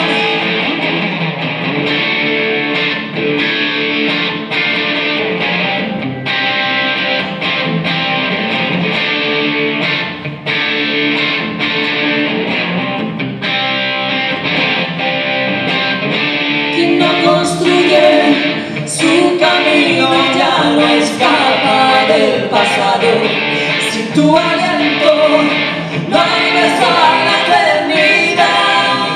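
Live song played on a semi-hollow electric guitar, strummed chords with a steady rhythm. About halfway through, a woman's singing voice comes in over the guitar.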